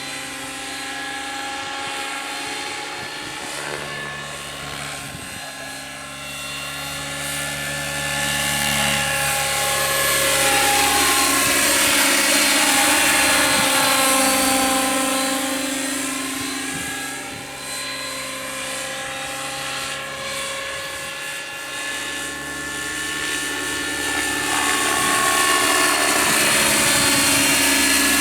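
Radio-controlled scale Bell 222 model helicopter in flight, its rotor and motor whine bending down and up in pitch as it flies past and turns. It grows louder about ten seconds in and again near the end.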